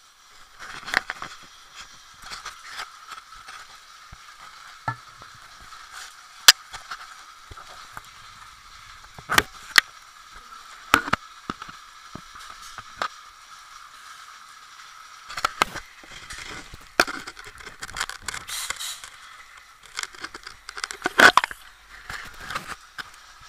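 Gear knocking and clicking against the metal pump guide rails, chain and pipes of a pump pit. The irregular sharp knocks sit over a steady crackling hiss. The loudest knock comes about six seconds in, and busier clusters of knocks follow later.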